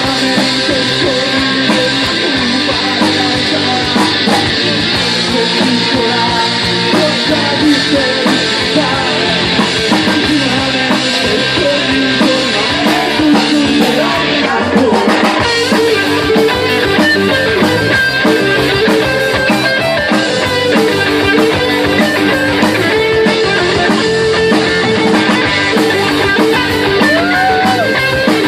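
Live rock band playing an instrumental passage: loud electric guitars over bass and drum kit, steady throughout.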